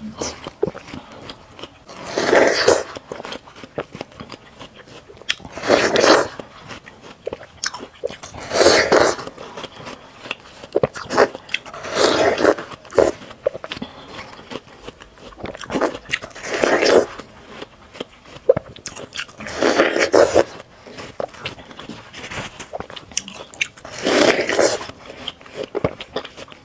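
Bites into juicy fresh watermelon: a wet, crisp crunch about every three to four seconds, with chewing in between.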